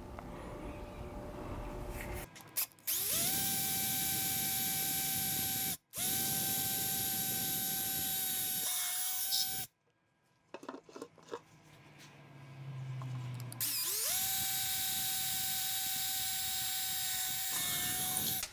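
Cordless drill running at a steady high speed, boring pilot holes into a white lamp globe: three runs of a few seconds each with a steady whine, the last after a longer pause with a few small clicks.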